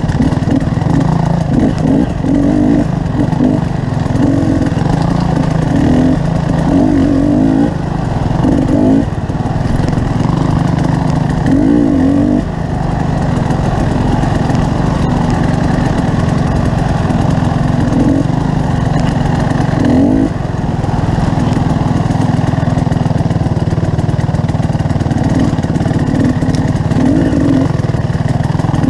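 Motorcycle engine running steadily while riding, its pitch rising and falling now and then with the throttle.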